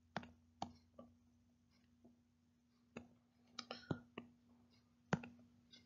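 Near silence: a faint steady hum with a few short, faint clicks scattered through it, several close together a little before four seconds in.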